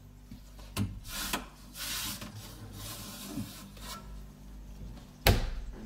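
Handling of a small under-counter refrigerator's door and plastic shelves: light clicks and rubbing, then one sharp knock about five seconds in. Under it runs the steady low hum of the fridge, switched on and already cold.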